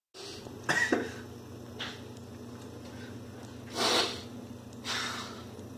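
A couple of sharp knocks of a chef's knife on a wooden cutting board about a second in, then two short breathy noises from a person, the louder one near the middle, over a low steady hum.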